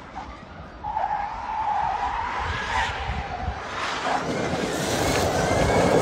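Electric rally car driving past with no engine note: a high, wavering squeal for about three seconds, then tyre and road noise swelling as it comes closer near the end.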